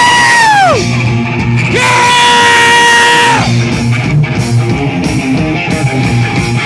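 Live rock band playing loud, with distorted electric guitars and drums. Two long held high notes stand out, the first sliding down and ending about a second in, the second held for about a second and a half.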